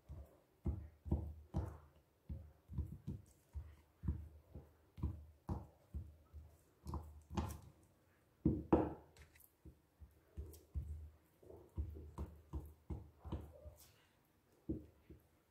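Raw chicken drumsticks being handled and set down on a bamboo cutting board: a run of soft, irregular knocks and thuds, about two a second, with the loudest knock a little past the middle.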